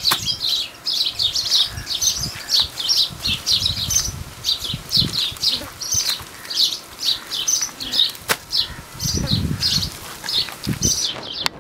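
Small birds chirping rapidly and continuously, about three short calls a second, stopping suddenly near the end. Underneath are soft low slaps and squelches of hands working wet mud mixed with straw.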